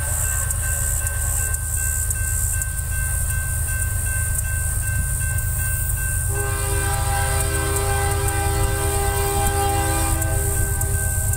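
Air horn of an approaching CSX GE ES40DC diesel locomotive, heard from a distance, sounding one long chord of several steady notes for about four seconds, starting about six seconds in, over a constant low rumble.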